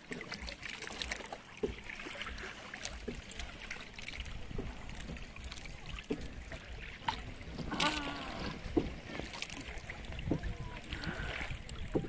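Small boat under way on the sea: a steady rush of water and wind with a low rumble and scattered light knocks.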